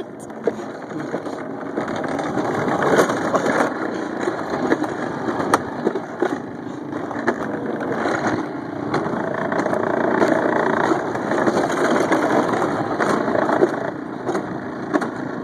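Alpine coaster sled running along its steel tube rail: a continuous rattling rumble of the wheels on the track, with sharp clicks and knocks here and there.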